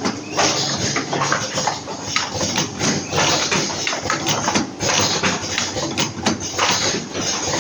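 Automatic cartoning machine running: a busy, irregular clatter of clicks and knocks from its box-forming and loading mechanism.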